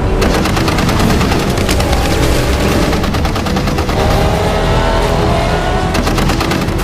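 Rapid bursts of machine-gun fire, many shots a second, over action-film music and a constant low rumble.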